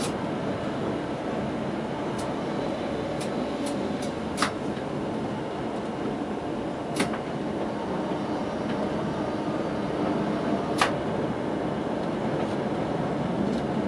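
A Tatra T6A5 tram running along street track, heard from inside the driver's cab as a steady rumble. A few sharp clicks cut through it, the loudest about four, seven and eleven seconds in.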